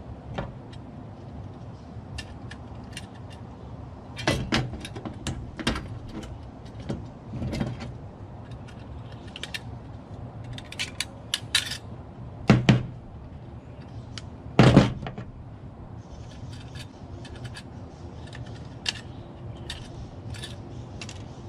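Small metal and plastic parts of an old telephone's hook-switch mechanism being worked loose with hand tools: irregular clicks, taps and rattles, with two louder knocks about twelve and a half and fifteen seconds in.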